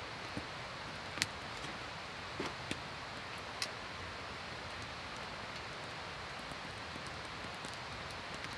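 Outdoor ambience: a steady rushing noise, with a few sharp clicks and taps about a second in, around two and a half seconds in, and again near three and a half seconds.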